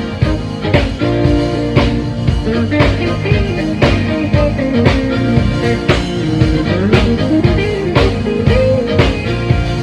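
A rock band playing: a drum kit with a strong hit about once a second over a steady beat, with bass and a guitar line.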